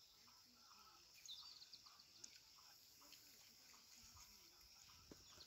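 Near silence: faint outdoor ambience with a few faint high chirps about a second in.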